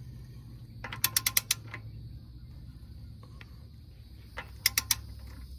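Hand ratchet clicking in short runs as a knuckle nut is snugged down before torquing: a quick run of about six clicks about a second in, and three more near the end.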